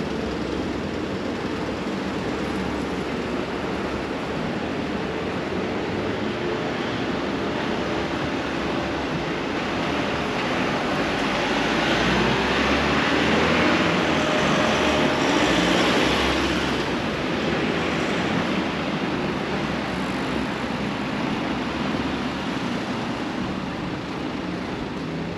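Street traffic on the road alongside, a steady rush of passing vehicles. About halfway through it swells for several seconds as trucks, including a refuse collection truck, drive past close by, then eases back.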